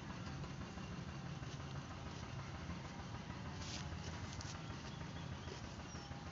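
Chewing a mouthful of raw bitter gourd, with two crisp crunches a little over halfway through, over a steady low hum.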